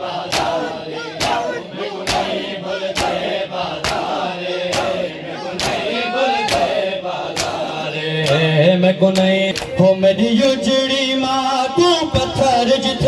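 A group of men chanting a noha (Muharram lament) in unison to the steady beat of matam, hands striking their chests about twice a second.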